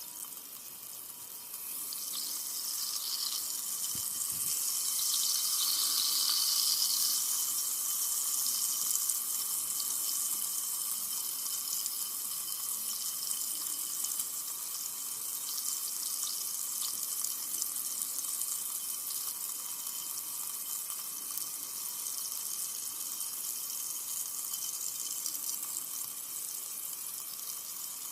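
Carbonated soda fizzing: a dense, high-pitched crackle of tiny bubbles popping. It swells about two seconds in, is loudest a few seconds later, then settles into a steady fizz.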